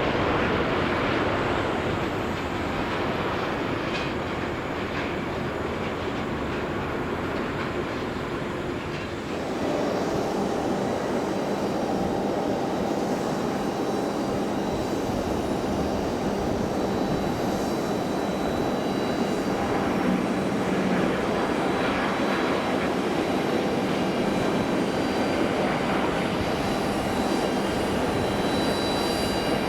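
Jet airliner engines running loud and steady, a dense rumbling roar with faint whining tones. The sound changes abruptly about nine seconds in, as at a cut to another aircraft.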